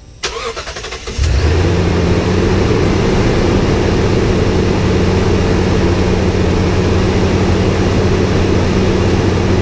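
Toyota Tundra's supercharged V8, fitted with a Magnuson supercharger, on a cold start: about a second of cranking, then the engine catches and settles into a loud, steady idle.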